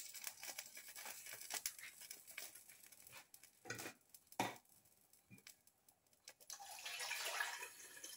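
Seasoned cooking water boiling around freshly added rice in a pot: a faint, crackling bubbling hiss. Two short knocks come near the middle, and the bubbling grows louder and denser over the last couple of seconds.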